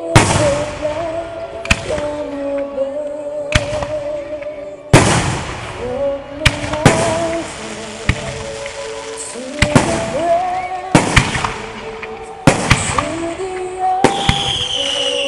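Aerial fireworks shells bursting in a series of sharp bangs, about fifteen over the span and some in quick pairs, over steady background music. A high whistling tone glides slightly downward near the end.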